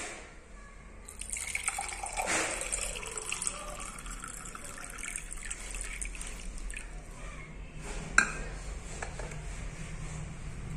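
Water pouring from a glass jug into a stainless steel tumbler, filling it, with a single sharp clink about eight seconds in.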